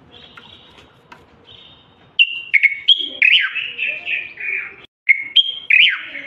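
Common bulbul singing. The song starts with a few faint notes, then from about two seconds in comes a run of loud, short whistled phrases, many falling in pitch, with a brief break near five seconds.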